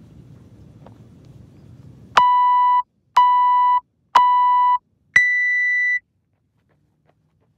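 Workout timer countdown: three short, loud beeps about a second apart, then a longer, higher-pitched beep that signals the start.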